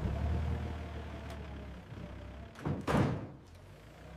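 Forklift engine running with a steady low hum, then a heavy double thunk about two and a half seconds in, as of a loaded pallet being set down in a steel shipping container.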